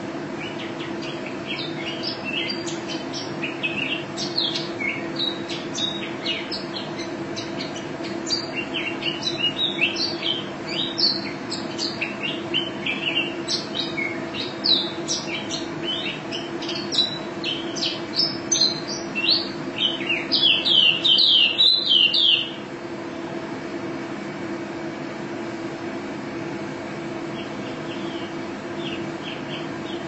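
Female white-eye (pleci) singing: rapid high chirps and short trills that grow denser and louder into a long fast burst, which cuts off suddenly about three quarters of the way through, leaving only a few faint chirps near the end. A steady low hum runs underneath.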